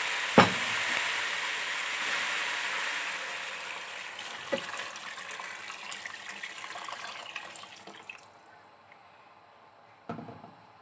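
Hot water poured into a pot of frying meat, onions, tomatoes and spices, giving a loud hiss and sizzle that gradually dies away over about eight seconds. A sharp clank of metal about half a second in, and a softer knock a few seconds later.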